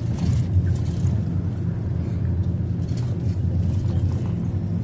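Steady low rumble of a car driving, with engine and road noise heard from inside the moving car.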